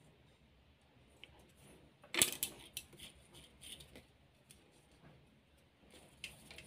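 Small sharp clicks and rattles from a circuit board and its wire ends being handled and fitted into place, loudest as a quick cluster about two seconds in, with a few scattered clicks after and near the end.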